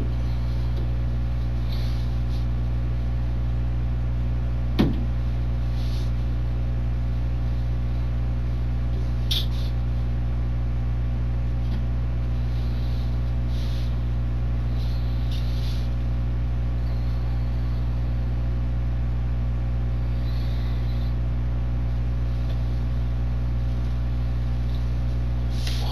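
Steady low hum filling a small room, as on a room-camera recording, with one sharp click about five seconds in, a fainter tick near ten seconds, and a few faint soft rustles.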